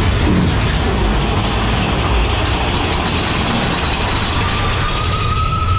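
Big Thunder Mountain Railroad mine-train roller coaster running along its track, a steady loud rumble and rattle. A thin high tone, rising slightly, comes in about four seconds in.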